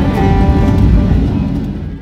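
Background music with sustained pitched notes, fading out near the end.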